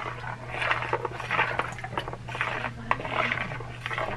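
A spoon stirring a soupy rice mixture in a plastic bowl: repeated wet scraping and squishing strokes, about one or two a second.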